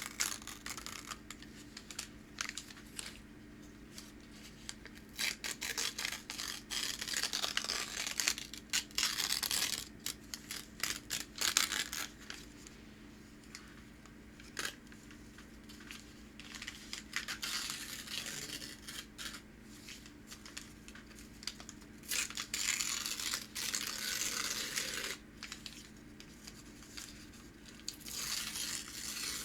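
Packing paper torn and crinkled by hand: uneven bursts of scratchy tearing with sharp crackles, broken by short pauses and a quieter stretch near the middle.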